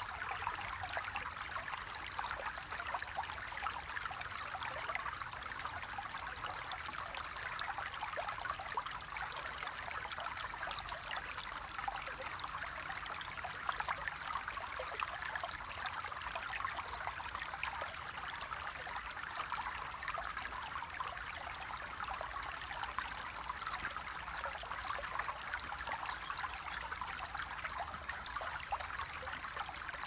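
Running water flowing steadily, a light, hissing babble of many small splashes and bubbles with little deep rumble.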